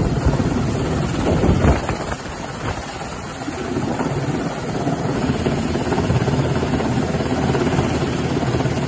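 Coast Guard MH-60T Jayhawk helicopter hovering overhead during a hoist rescue: a steady rotor and engine noise, with its downwash buffeting the microphone. The noise dips briefly about two seconds in.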